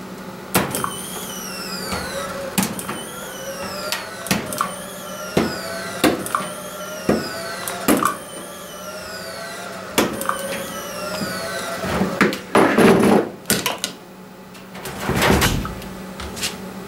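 Capacitive-discharge spot welder (Sunstone CD1000DP with a PG2 hand piece) firing welds on expanded steel mesh: about a dozen sharp snaps, one every second or two, each followed by a short electronic whine that shifts in pitch, over a steady low hum. Near the end come two louder noisy bursts of handling.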